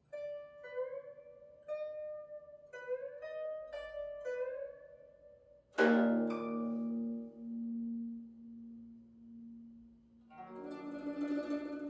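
Solo guzheng, tuned to the five pitches D, E-flat, F-sharp, A-sharp and B: single plucked notes, several bent upward by pressing the string left of the bridge. About six seconds in a loud low note is struck and rings slowly away, and near the end a denser cluster of notes begins.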